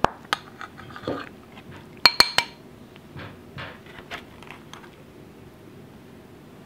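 Metal serving spoon scraping and clinking against a foil pan while dishing up chicken pot pie: scattered taps, a cluster of loud ringing clinks about two seconds in, then softer, sparser taps that die away.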